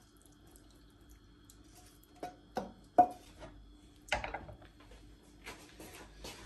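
Kitchen utensils knocking against a cooking pot: three sharp knocks about two to three seconds in, the third the loudest. About a second later comes a clatter with a short ringing, then lighter scraping.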